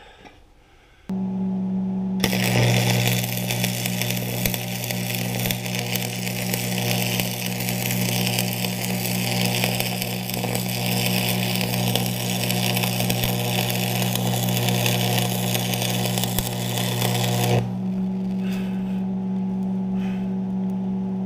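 Stick (arc) welding a steel plate onto an implement frame: the arc crackles and sizzles steadily for about fifteen seconds, then stops suddenly. A steady hum from the welding machine starts about a second in and carries on after the arc stops.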